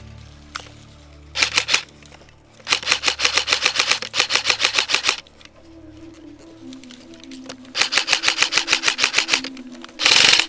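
Airsoft rifle firing rapid full-auto bursts: a short burst, then two longer ones of quick, evenly spaced cracks. Near the end there is a short, loud burst of noise. Background music plays underneath.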